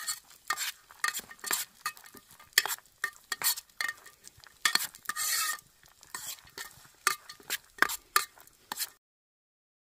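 A spoon stirring dry fruits as they roast in a pan: a quick, irregular run of scrapes and clinks on the pan, with one longer scrape about halfway. The sound cuts off suddenly near the end.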